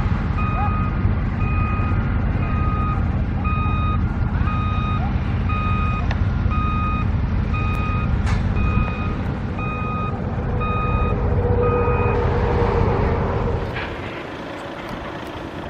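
A construction vehicle's backup alarm beeps steadily about twice a second over the low rumble of its running engine. The beeping stops about twelve seconds in, and the engine noise drops away shortly after.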